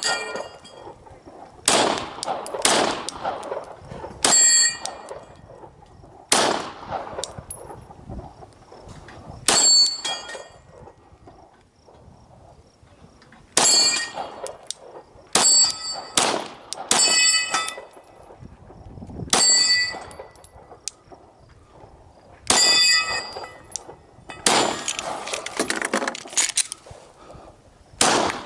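A string of rifle shots at steel targets. About a dozen sharp reports come at irregular intervals, most followed by the clang and ring of a hit steel plate, with a short pause partway through and a faster run of hits near the end.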